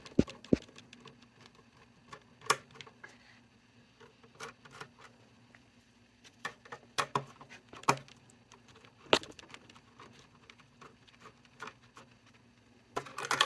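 Irregular small clicks and taps of a screwdriver and metal as the mounting screws of a wall outlet are loosened to free it from its electrical box.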